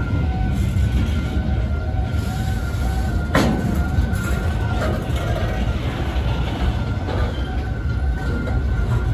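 Loaded container wagons of a freight train rolling past on the track: a heavy steady rumble with a thin, steady high squeal over it, and one sharp clank about three and a half seconds in, typical of wheels striking a rail joint.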